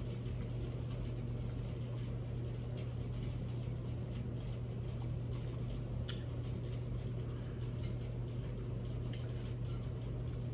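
Close-up chewing and mouth smacking while eating tacos: many small wet clicks, with two sharper clicks about six and nine seconds in. A steady low hum runs underneath.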